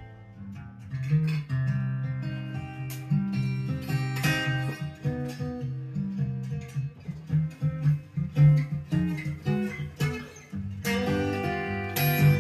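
Guitar music, mostly plucked strings with a strong low line, played back through a pair of Jensen CS315 loudspeakers; it gets louder about a second in.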